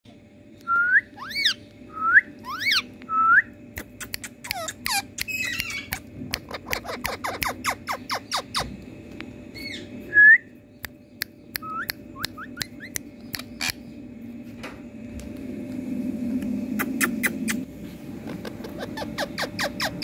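Rose-ringed parakeets giving short, loud, rising whistled calls, four in the first few seconds and another about ten seconds in. Between the calls come long runs of rapid sharp clicking.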